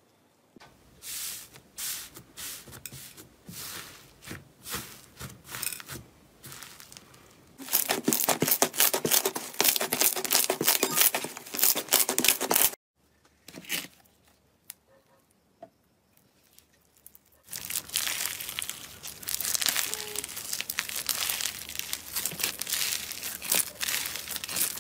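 Slime squeezed and stretched by hand. At first come separate soft squishes from a green fluffy slime, then a loud run of dense crackling that cuts off suddenly. After a few quiet seconds with faint clicks, steady crackling and popping starts again as pink clear slime is stretched.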